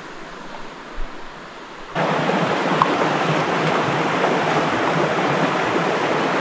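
River water rushing: a loud, steady rush that comes in suddenly about two seconds in, after a quieter stretch of faint background noise.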